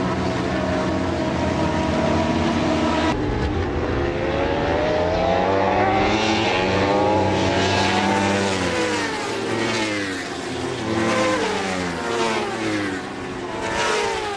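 Racing motorcycle engine at full throttle. After an abrupt change about three seconds in, the pitch climbs steadily for several seconds, then falls and rises again repeatedly as the rider changes gear and brakes for corners.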